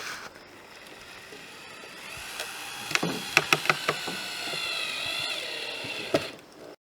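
A quick run of about five sharp knocks in under a second, then one more knock near the end, from hand-tool work fitting a new dryer vent cover. The sound then cuts off abruptly.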